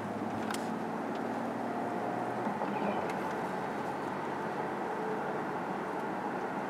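Steady road and engine noise inside the cabin of a BMW 7 Series driving at speed.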